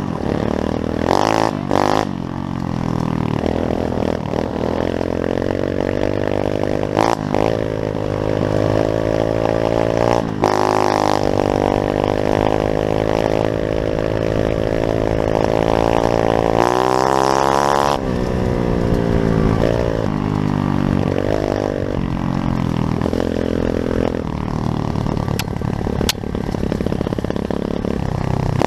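Pit bike's small single-cylinder engine running and being revved, its pitch rising and falling; one long rev climbs about two-thirds of the way in and drops off sharply.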